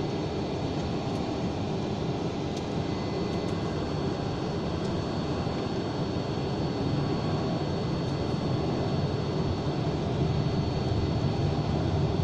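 Boeing 747 jet engines and rumble heard from inside the cabin during takeoff, a steady noise that grows louder through the second half, with a faint steady high whine on top.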